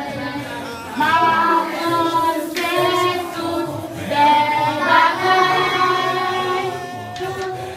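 Group of children singing a song together, with long held notes.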